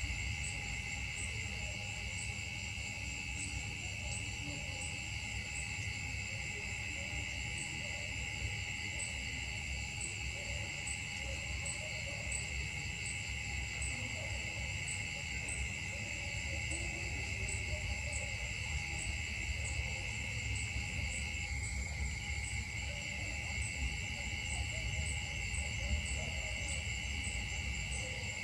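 Steady chorus of insects in the trees, several high droning tones layered together with a faint regular pulse about once a second, over a low rumble.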